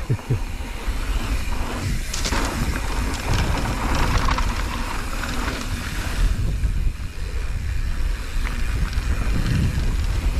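Mountain bike riding fast down a dry dirt trail: wind buffeting the camera microphone as a steady rumble, with scattered clicks and knocks from the tyres and bike over the rough dirt.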